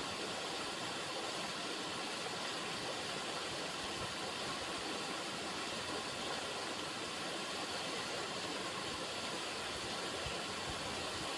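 River water running steadily, an even rushing hiss with no change in level.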